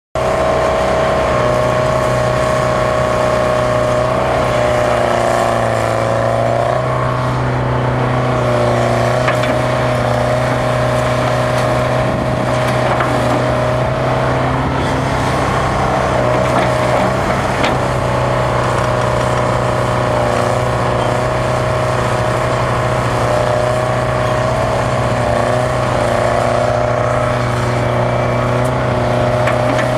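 Detroit Diesel 4-71 two-stroke diesel of a Bucyrus Erie 20-H excavator running steadily under work while it digs and loads sand. Its pitch wavers briefly a few times, with a single faint clank partway through.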